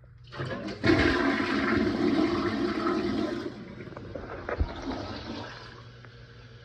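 Toilet flushing: a sudden rush of water for about three seconds, easing into a quieter rush as the tank refills.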